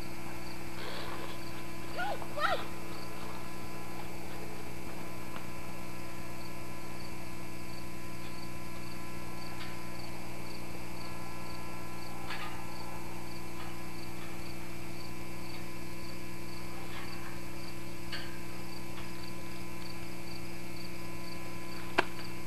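Steady electrical hum on the recording throughout, with faint regular insect chirping behind it. A brief call about two seconds in and a single sharp click near the end.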